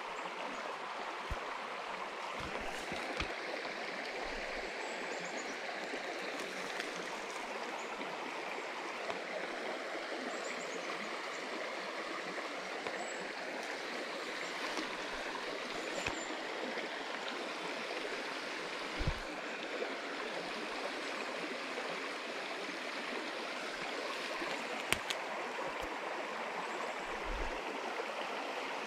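Small, shallow, rocky creek running over stones: a steady rush of water, with a few soft knocks scattered through.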